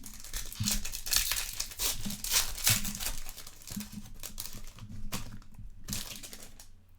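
Foil wrapper of a Topps Chrome trading card pack crinkling and tearing as it is opened, in a run of irregular crackles that dies away near the end.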